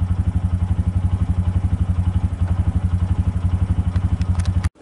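An engine idling close by: a steady low throb, pulsing rapidly and evenly, that cuts off suddenly near the end.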